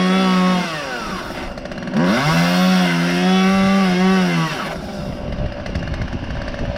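Two-stroke chainsaw revving at high speed, its pitch sliding down about a second in, then revving up again for about two and a half seconds before dropping away about five seconds in.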